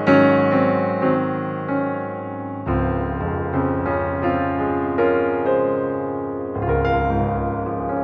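Background music: soft piano or electric piano chords, a new chord with a deep bass note struck about a third of the way in and again near the end.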